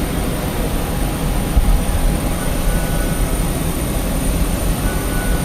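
Steady low rumble of jet airliner noise with a thin, constant high whine, heard while boarding a plane. There is a single brief knock about a second and a half in.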